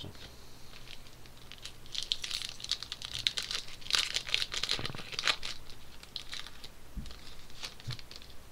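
Wrapper of a 2013-14 SPX hockey card pack being torn open and crinkled by hand. The crackling is busiest from about two to five and a half seconds in, followed by a couple of soft thumps near the end.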